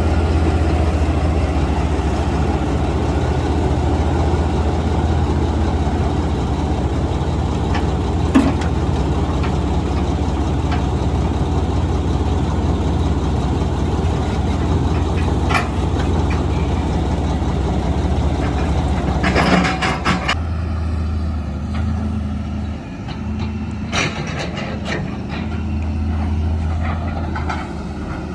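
Heavy diesel equipment engine running steadily, with scattered metallic clanks and knocks. About twenty seconds in, a short burst of noise, after which the engine note drops and becomes uneven.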